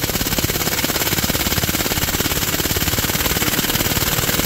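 Pneumatic impact wrench hammering rapidly and continuously on a tight main bearing cap bolt of a Cat C15 diesel engine, working it loose.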